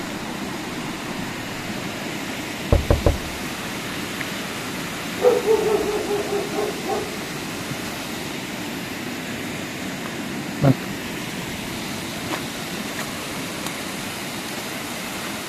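Steady rush of stream water pouring over stone steps. A couple of low knocks about three seconds in, and a short pitched call about five seconds in.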